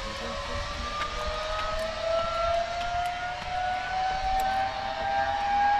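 Zipline trolley pulleys running along the steel cable, giving a whine that climbs slowly and steadily in pitch as the trolley speeds up down the line.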